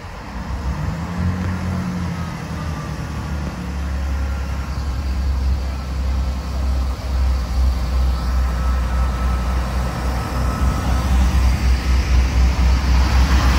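Class 158 diesel multiple unit approaching and drawing alongside, its underfloor diesel engines running with a steady low drone that grows louder as the train comes close.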